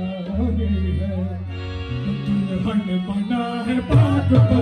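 Live qawwali: harmoniums holding steady notes under a male voice singing, with hand-drum strokes setting in near the end.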